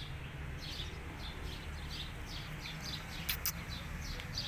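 Small birds chirping in a quick, repeated run of short high chirps over a steady low background rumble. Two sharp clicks come about three and a half seconds in.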